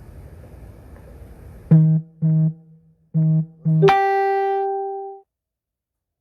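A short musical sting: four brief low notes, then a higher note held for over a second that cuts off into dead silence. Faint outdoor background noise comes before it.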